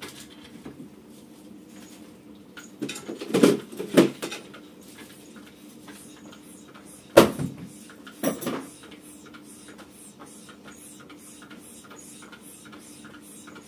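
Mini stepper being pedalled: its pedals and cylinders clicking and creaking in a quick, even rhythm that becomes steady in the second half, with a few louder knocks earlier on.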